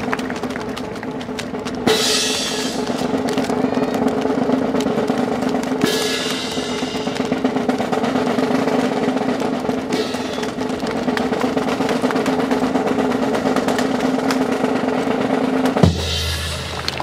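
Sustained fast snare drum roll, with a few sharper clacks, such as rifles being slapped in drill, about two and six seconds in. Near the end the roll stops suddenly on one hard accent, followed by a deep bass-drum boom.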